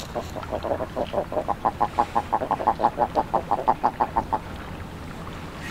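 A duck calling in a fast, even run of clucking notes, about six a second, growing louder and then stopping a little over four seconds in.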